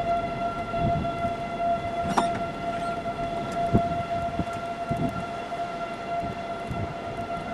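Outdoor tornado warning siren sounding a steady, unwavering tone with overtones, heard from a distance over low rumbling noise.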